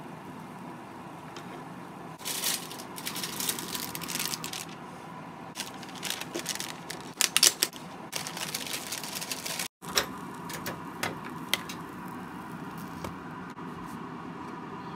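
Bursts of clicking, clattering and rustling as food and plastic-wrapped packaging are handled on a plastic cutting board, over a steady background hum.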